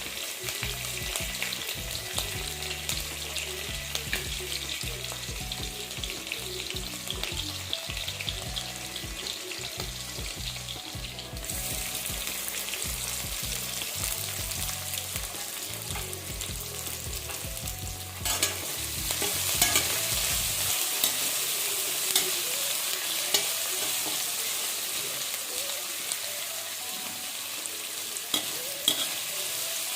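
Food sizzling in hot oil in a pan while a metal spoon stirs it, scraping and clicking against the pan. The sizzling gets louder about 11 seconds in and again about 18 seconds in.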